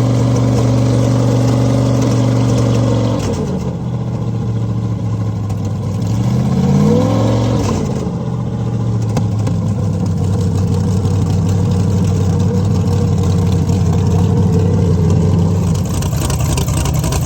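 Cigarette speedboat's 572 big-block V8 engines running at a fast idle, dropping to a lower idle about three seconds in. Halfway through there is one throttle blip that rises and falls, and then they settle back to a steady idle.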